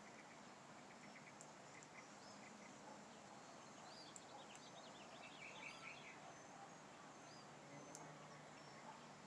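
Faint bird chirping, a quick run of short high notes about four to seven seconds in, over a steady low hiss, with a few faint isolated clicks.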